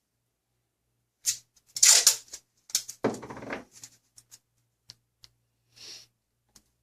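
Clicks and rustling from handling small computer parts and their packaging, a burst of them a little over a second in, then a few light clicks.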